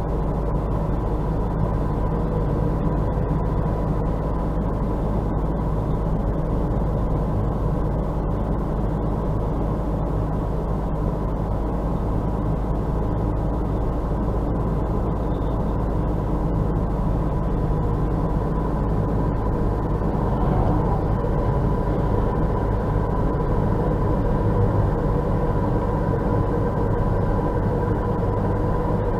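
Steady road and tyre noise heard inside a car's cabin while driving at about 55 km/h on a snow- and slush-covered road, with a faint steady hum running underneath.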